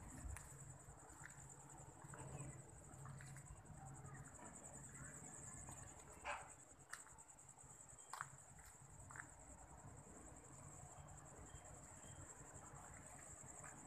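Faint, steady, high-pitched chirring of night insects, with a few soft clicks and taps around the middle.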